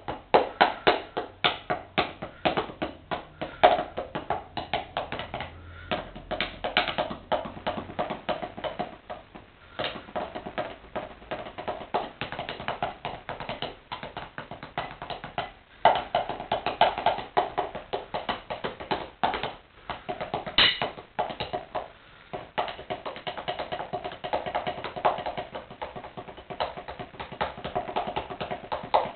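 Wooden drumsticks drumming fast rhythms on a pair of athletic shoes: a rapid stream of dull taps, with a few short breaks between phrases.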